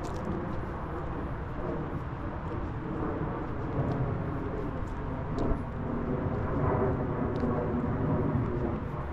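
Steady outdoor background rumble, with a few faint ticks about four, five and a half and seven seconds in.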